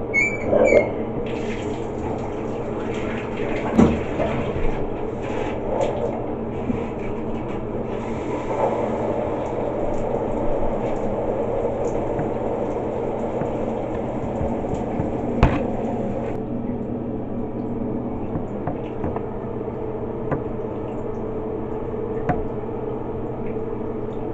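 Heavy rain pouring: a steady rush of falling water, with a couple of sharp knocks.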